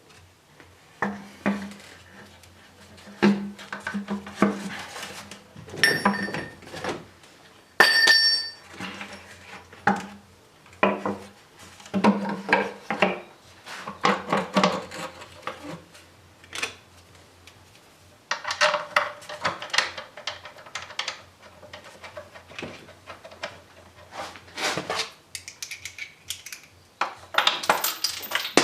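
Hand tools and metal engine parts clinking and clattering while parts such as the inlet manifold are refitted during reassembly. Irregular knocks and clicks throughout, with two sharper metal strikes that ring briefly about six and eight seconds in.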